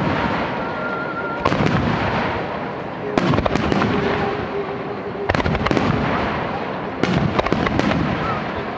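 Aerial firework shells bursting at very close range in a rapid finale barrage. Clusters of sharp bangs come about every two seconds over a continuous crackle and rumble of further bursts.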